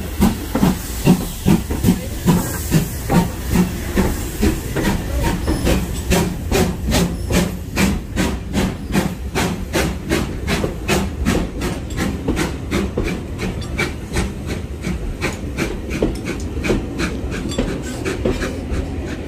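GWR Manor class steam locomotive No. 7822 passing close by, hissing steam and a beat about twice a second for the first few seconds. Its carriages follow, rolling past with a fast, even clatter of wheels over the rail joints.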